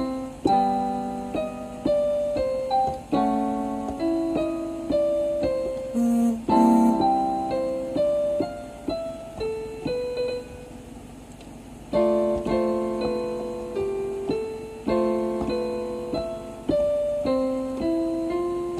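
Electronic keyboard played by hand: a slow melody of single notes over chords, each note struck and dying away. Playing pauses briefly a little past ten seconds in, then resumes.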